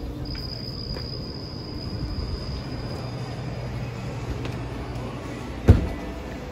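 Steady low hum, with insects trilling high and steady that fade out partway through, and one sharp thump about five and a half seconds in.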